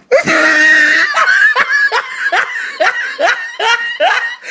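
Cartoon wolf character laughing: a comic laugh in a run of short 'ha' pulses, about two a second, each rising in pitch.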